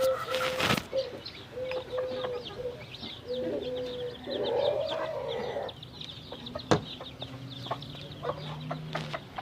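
A mother hen clucking in a run of short, evenly spaced clucks while her chicks peep in many small high chirps. A single sharp click comes about two-thirds of the way through.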